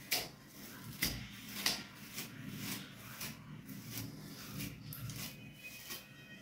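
A comb drawn through thick natural hair: a run of short rustling strokes, about one or two a second.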